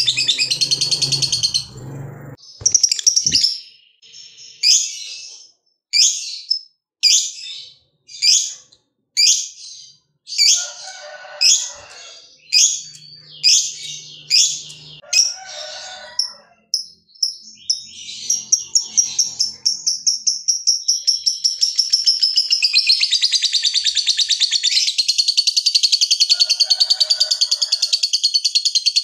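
Lovebird calling: a string of sharp, high chirps about one a second, then from about halfway a long, unbroken, rapid chattering trill that runs for more than ten seconds. This is the long 'ngekek' song prized in a fighter lovebird.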